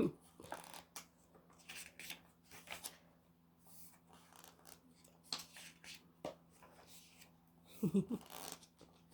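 Photobook pages being turned and handled: intermittent paper rustles and soft sliding strokes.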